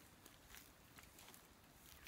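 Near silence, with a few faint, scattered ticks and rustles.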